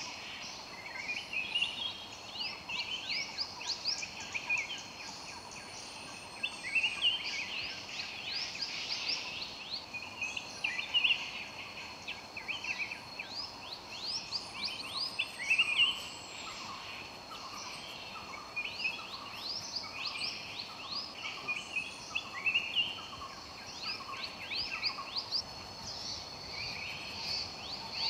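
Forest ambience: birds singing in repeated clusters of quick rising notes every second or two, over a steady high insect drone.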